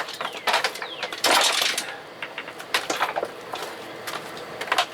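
Sticking steering swivel bracket of a 1975 Evinrude 40 hp outboard being rocked back and forth: irregular knocks and clunks, with a louder scraping burst about a second in and a few short squeaks near the start. The bracket is stiff because a broken grease fitting has kept it from being lubricated.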